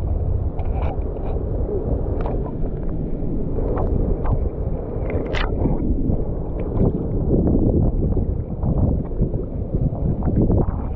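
Shallow seawater sloshing and splashing around wading feet, with many short splashes, over a steady rumble of wind on the microphone.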